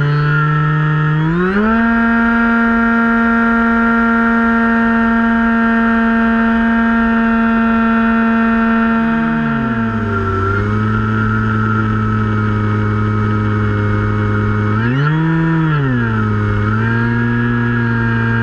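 Finwing Penguin RC plane's electric motor and propeller, heard close up from on board, whining steadily with the throttle changing. The pitch climbs about a second and a half in, drops near the middle, then briefly rises and falls again near the end, over a low rush of wind.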